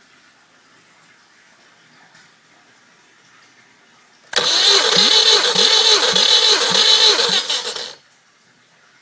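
Subaru EJ201 2.0-litre flat-four engine turned over by its starter motor for about three and a half seconds, a loud whirring crank with a regular pulse, then cutting off abruptly.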